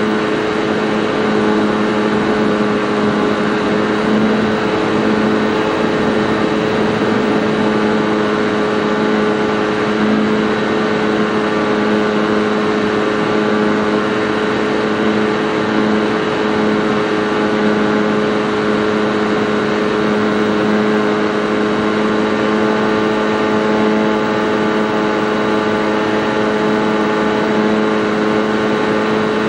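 Model airplane's motor and propeller running at a steady throttle in flight, heard close up from on board: a loud, even hum at one unchanging pitch over rushing air noise.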